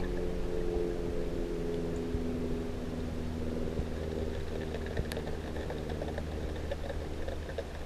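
Underwater ambience in a swimming pool as heard by an underwater camera: a steady low hum with a few faint steady tones that fade out after about three seconds, and scattered faint clicks.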